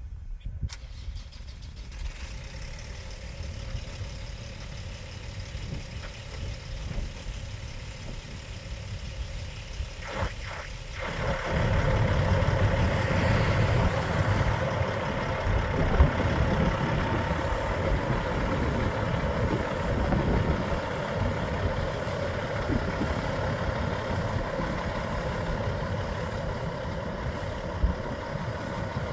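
Diesel engine of a Peterbilt 388 tractor truck running steadily, becoming clearly louder and fuller about eleven seconds in.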